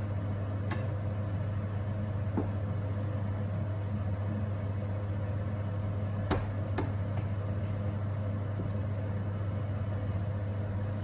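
A steady low mechanical hum with a faint even hiss, and a few light knocks: one near the start, one a couple of seconds in, and two close together around six seconds in.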